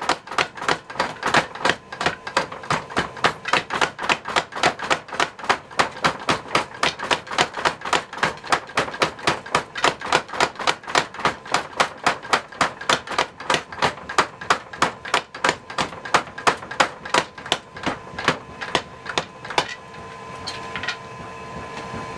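Kurashina mechanical power hammer striking a glowing iron billet in a fast, even run of blows, about three to four a second. The hammering stops about twenty seconds in, followed by a couple of single blows.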